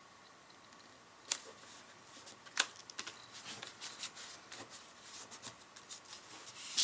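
Paper and card stock being handled and pressed down by hand on a cutting mat. Two sharp taps come a little over a second apart, then a run of light rustles and clicks.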